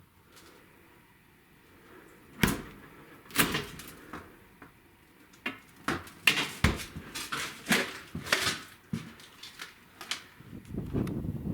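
A series of sharp knocks and thumps with irregular spacing, a few of them loud, like doors or panels being handled and banged. Near the end a steady rushing noise sets in.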